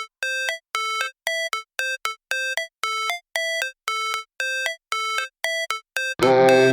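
Background music: a steady, quick run of short, bright synthesizer notes with nothing underneath. Fuller music with a bass line comes in about six seconds in.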